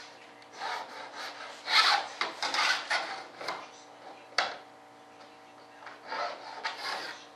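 Hand tool scraping and rubbing in irregular strokes against a molded panel, in two spells, with a single sharp tap about four and a half seconds in.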